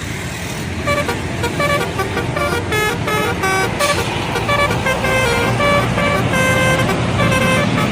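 Bus telolet horn playing a quick melody of short notes stepping up and down, starting about a second in, over the low rumble of a bus engine.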